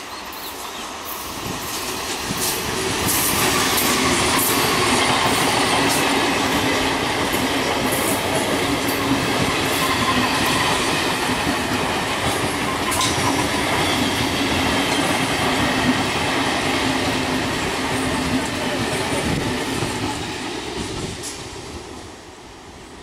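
A Kolkata suburban electric multiple unit (EMU) train passing close by: a steady rumble of wheels on rail with scattered clicks over the rail joints. It swells over the first few seconds and fades away near the end as the last coaches go by.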